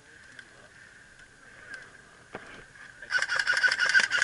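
Airsoft gun firing rapidly, starting about three seconds in as a loud, dense rattle of clicks, after a single sharp click a second earlier.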